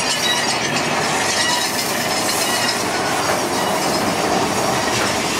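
Mine-train roller coaster running along its track, heard from a seat on the train: a steady, loud rattle and rumble of the cars and wheels, with now and then a thin wheel squeal.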